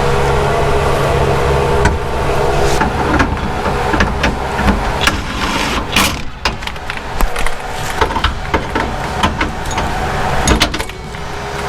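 A run of scattered metal knocks, clicks and clanks from handling the newly fitted exhaust under the car, over a steady hum that stops about two seconds in.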